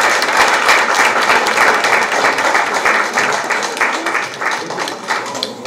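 Audience applauding, many hands clapping together, the applause easing off near the end.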